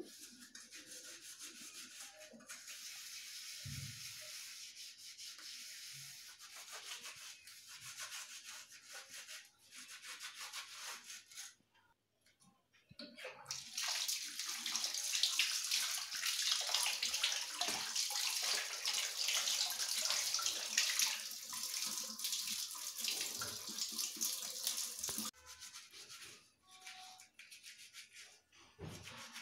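Soapy brass vessels scrubbed by hand, a soft rubbing hiss. About 13 seconds in a tap runs over them for some ten seconds as they are rinsed, the loudest part. Then scrubbing with a scrub pad resumes, on a copper-and-brass lamp.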